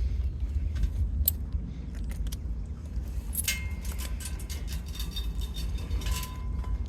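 Metal dog tags and leash hardware jingling in short bursts, about three and a half seconds in and again near the end, with scattered small clicks over a steady low rumble.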